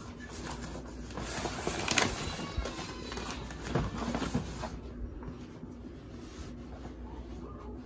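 Thin vinyl splash-pad sprinkler mat crinkling and rustling as it is unfolded and shaken out, with a sharper crackle about two seconds in.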